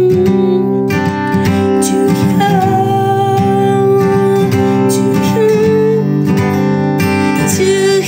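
Steel-string acoustic guitar with a capo, strummed chords played without vocals between sung lines.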